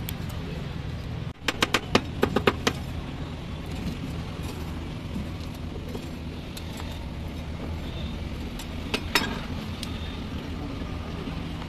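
Two metal spatulas clinking against a frosted steel cold plate as they chop Oreo cookie pieces: a quick run of about seven sharp clinks a little over a second in, and one more near the end, over a steady low hum.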